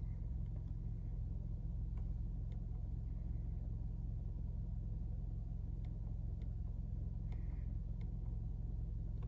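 Toyota Camry four-cylinder engine idling steadily as a low hum heard from inside the cabin, with a few faint clicks of the steering-wheel arrow buttons being pressed.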